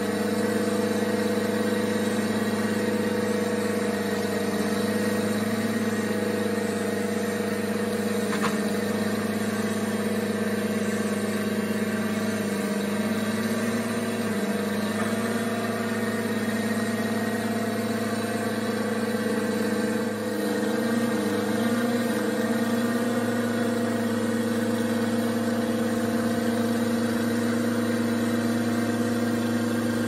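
Case 1830 skid steer loader's diesel engine running steadily while it lifts a heavy crate on its forks. Its pitch sags briefly a little over twelve seconds in, and again about twenty seconds in, wavering before it steadies.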